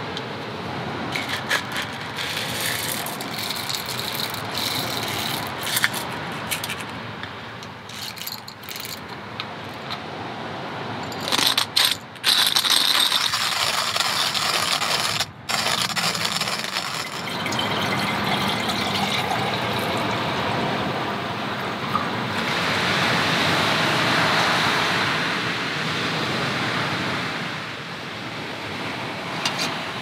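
Small clicks, clatters and rattles of camping cookware and gear being handled while coffee is made, with a louder clatter about eleven seconds in. In the second half a steady rushing noise swells and fades.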